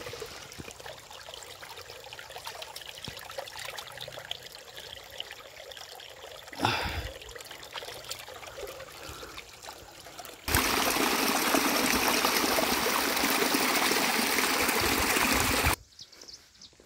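Shallow mountain stream trickling over rocks, with a hand splashing into the water about seven seconds in. Later a much louder, steady rushing noise lasts about five seconds and starts and stops abruptly.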